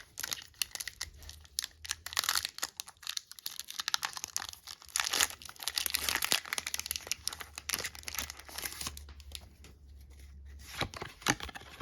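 Foil wrapper of a Pokémon card booster pack being torn open and crinkled, a dense run of crackles and snaps that thins out over the last couple of seconds.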